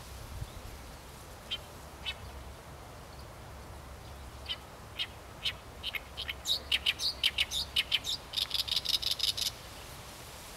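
Great reed warbler singing: a few scattered short notes, then from about halfway a fast run of repeated notes that grows denser and stops about a second before the end.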